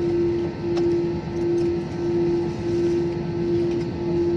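Jet airliner cabin noise as the plane rolls along the runway: a steady low rumble with a humming tone that swells and dips about three times every two seconds.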